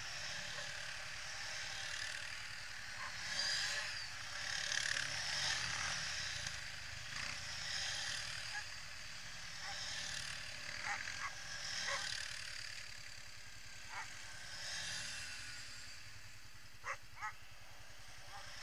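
Quad bike (ATV) engine running as it rides over rough grass, its sound rising and falling with the throttle. A few short sharp knocks, two of them close together near the end.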